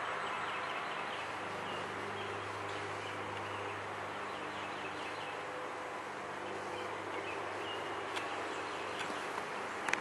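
Woodland ambience: a steady background hiss with faint, scattered bird chirps and a single sharp click about eight seconds in.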